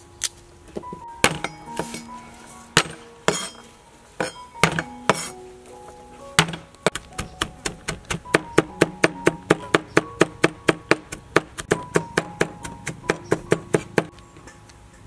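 Cleaver chopping garlic on a wooden cutting board: a few scattered knocks, then from about six seconds in a fast, even run of chops, about four a second, that stops near the end. Background music plays throughout.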